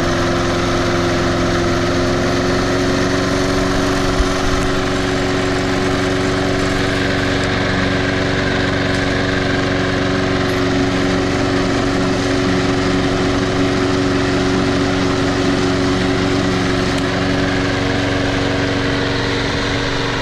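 Briggs & Stratton Intech 6.75 OHV single-cylinder engine of a Snapper walk-behind mower running steadily at throttle while the mower cuts grass.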